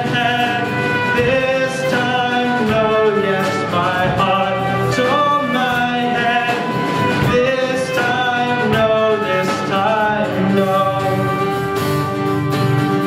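Live band playing a folk-rock song: a melody line over steady strummed and low accompaniment, without a break.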